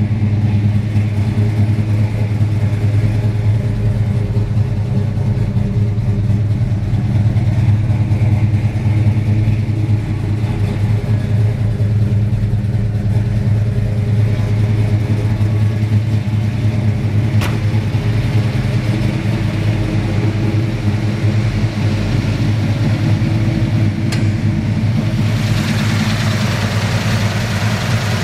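Ford 429 Cobra Jet V8 idling, a low, steady idle with an even pitch throughout. Two faint clicks come partway through. Near the end the sound turns brighter and hissier as it is heard at the open engine bay.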